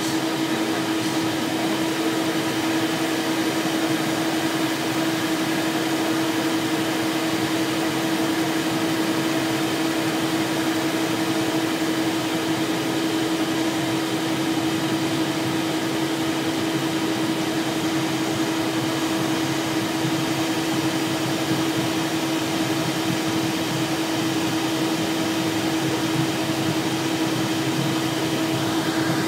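Steady cockpit noise of a Cessna Citation Excel business jet rolling along the runway after landing: its rear-mounted turbofans and air systems give a constant hiss with one steady hum.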